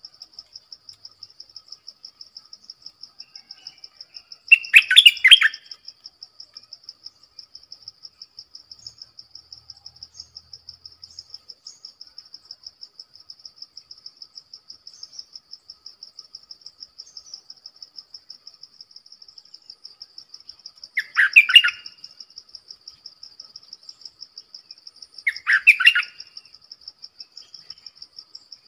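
Stripe-throated bulbul singing three short bursts of song, about five seconds in and twice more near the end. Under it runs a steady, high, rapidly pulsing insect trill.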